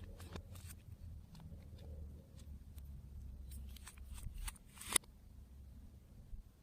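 Slime being worked and mixed by hand: faint scattered clicks and small pops, with a quick run of crackles about three and a half to five seconds in, ending in the loudest pop.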